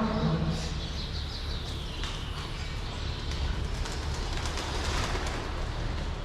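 Birds chirping in a dairy barn over a steady low hum, with a short low falling call right at the start.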